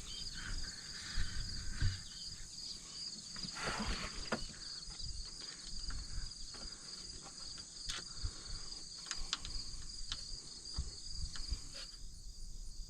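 Steady chorus of insects chirping outdoors, with scattered light clicks and knocks of handling over it.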